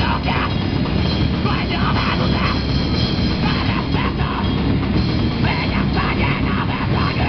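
A live rock band playing loud and without pause: electric guitars through amplifiers over a drum kit.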